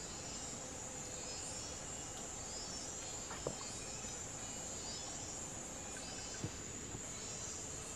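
Steady high-pitched drone of forest insects, with a faint swelling pulse on top about every two seconds. Two short sharp ticks stand out, one about three and a half seconds in and another about six and a half seconds in.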